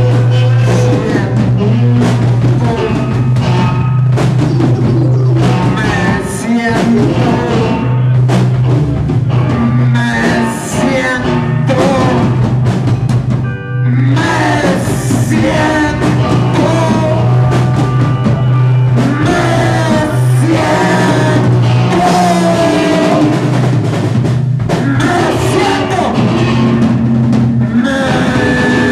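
Live band playing loud, dense noise-rock music: drum kit, a long-held low bass note, and wavering pitched lines above, with a brief break about fourteen seconds in.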